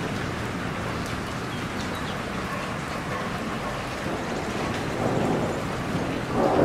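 Steady rain falling, an even dense hiss of drops. Near the end it grows louder as a roll of thunder begins to rumble in.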